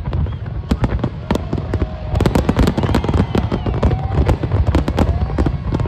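Aerial fireworks display: a dense barrage of shell bursts and crackling over a continuous low rumble, growing thicker about two seconds in.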